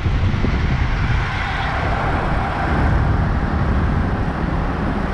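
City traffic and road noise heard from a moving car: a steady low rumble with a hiss that swells a little through the middle.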